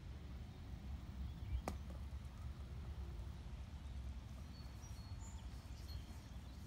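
A golf disc thrown from the hand, heard as a single sharp snap about one and a half seconds in. A steady low outdoor rumble runs underneath, with a few faint bird chirps in the middle.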